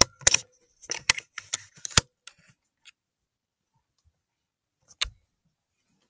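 Handling noise from a rifle with a Pulsar N455 digital riflescope being moved: a quick run of clicks and metallic rattles over the first two seconds, then a single knock about five seconds in.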